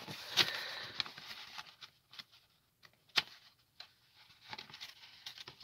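Paper instruction sheet rustling as it is unfolded and turned over by hand, with one sharp click about three seconds in and a few light ticks near the end.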